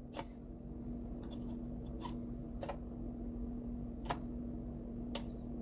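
Faint, scattered taps and clicks of pie dough being cut and set on a small plastic kitchen scale to be weighed, about five in all, over a steady low hum.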